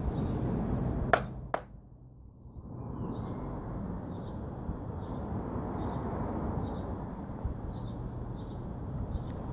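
Palms rubbing together, then two sharp knocks about a second in. After a short lull comes a steady outdoor hiss, with a small bird chirping over and over, a little under twice a second.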